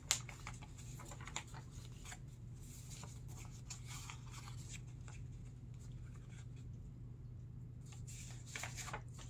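Quiet room tone with a steady low hum and faint scattered clicks and rustles of small handling, a brief cluster of them near the end.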